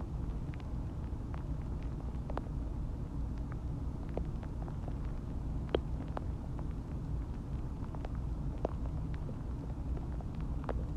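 Stomach growling while digesting a meal: a steady low rumble with scattered small gurgling pops and clicks. The sharpest pop comes just before six seconds in and another near nine seconds.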